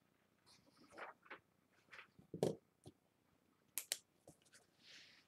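Faint, scattered rustles and small ticks of paper sheets being handled and laid down, with a soft sliding hiss near the end.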